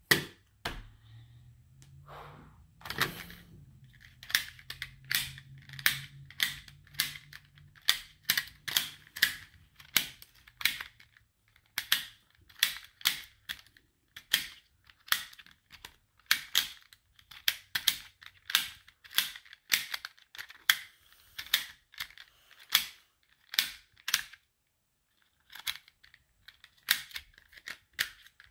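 Plastic ball puzzle (a Rainbow Magic Ball) being twisted fast during a timed solve: a long run of sharp clicks, about two a second, with short pauses.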